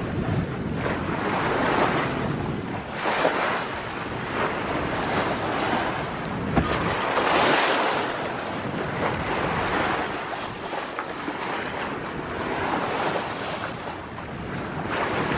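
Sea water rushing and splashing along the hull of a sailing yacht under way, swelling and easing with the waves, with wind buffeting the microphone.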